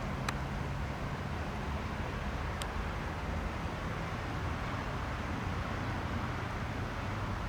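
Steady rushing noise with a low hum from the twin turbofan engines of a Cessna Citation XLS+ business jet. Two faint clicks come about two seconds apart.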